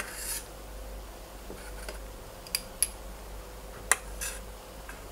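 A small metal spoon scraping through hot milk in a stainless steel pot and lifting out cloves: a few light clinks, the sharpest about two and a half, almost three, and four seconds in.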